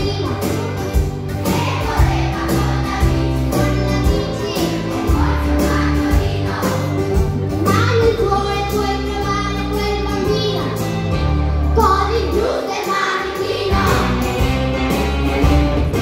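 A class of children singing a blues song together in chorus, over an instrumental accompaniment with a steady bass line.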